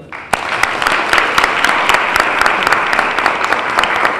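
A small group of people applauding, breaking out just after the start and going on steadily as a fast, dense patter of hand claps.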